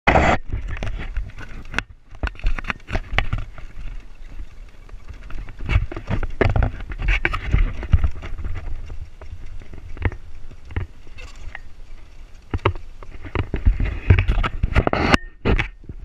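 Water-buffalo-drawn wooden cart rattling and knocking as it jolts over a rough dirt track, with a low rumble underneath.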